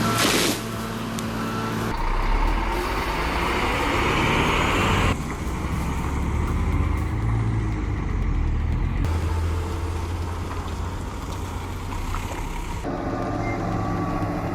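Heavy diesel logging trucks running, heard across several short clips that cut abruptly from one to the next. A stretch of hiss comes from about two to five seconds in.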